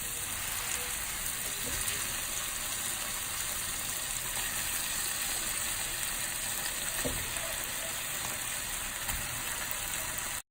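Curry ingredients frying in hot oil in a pan: a steady sizzle, with a faint knock or two near the end.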